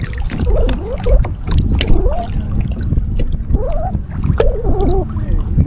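Steady low rumble of wind on the microphone and water moving against a kayak hull. A few short pitched sounds rise and fall over it.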